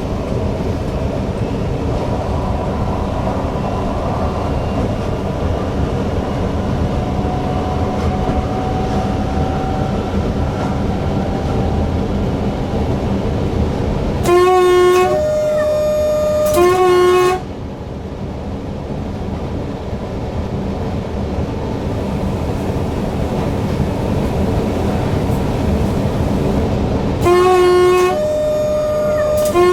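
Newag Impuls EN63 electric multiple unit running along the line, with steady rolling noise in the cab. Its horn sounds twice, about half way through and near the end. Each time it plays a short blast, a longer tone of another pitch, and a second short blast.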